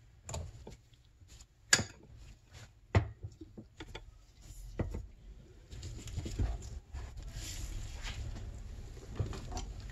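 Scattered metal clicks and knocks of hand tools on a crankcase splitting tool bolted to a two-stroke snowmobile engine case, as its forcing screw is turned and a socket fitted onto it; a few seconds of steadier rough scraping noise follow midway.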